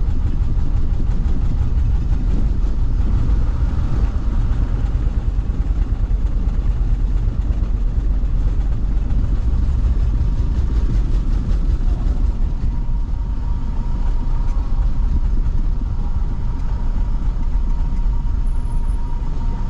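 Low, steady rumble inside a motorhome's cab as it creeps over the ridged steel vehicle deck of a roll-on/roll-off ferry, the engine running and the body jolting over the deck's ridges.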